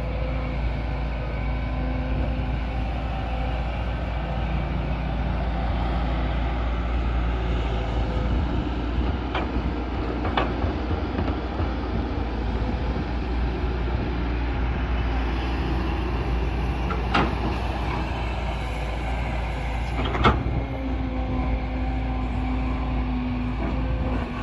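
Excavator's diesel engine running steadily at work, with a few sharp knocks; the loudest comes about twenty seconds in.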